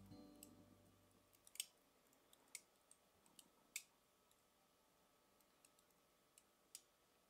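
Faint, sharp clicks and pops, scattered through the first four seconds with one more near the end, from a squeeze bottle sputtering as mayonnaise is piped out in thin lines.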